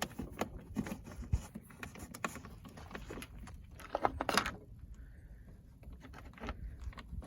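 Irregular light clicks, taps and scrapes of hand tools and 10 mm bolts being handled while the generator housing is refitted. There is a louder scrape about four seconds in.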